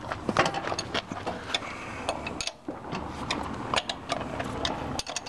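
Metal clicking and ticking of a 19 mm wrench working the nuts off the studs of a BCS walk-behind tractor's quick hitch, with irregular sharp clicks several times a second.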